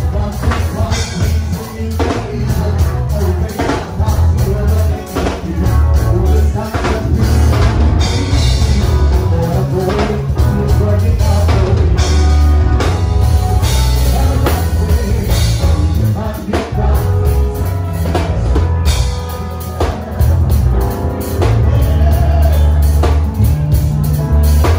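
Band music with a drum kit, heavy bass and singing, with a steady beat.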